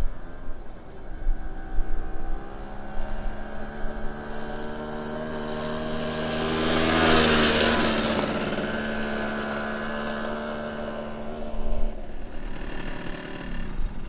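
Simson Sperber SR 4-3's single-cylinder two-stroke engine running steadily as the moped rides past, loudest about halfway through as it comes close. Its pitch drops near the end as it slows to a stop.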